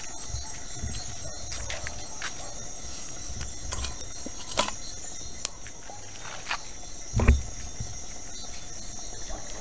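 Crickets chirring steadily at night, a high continuous drone, with a few light clicks and knocks and one louder low thump about seven seconds in.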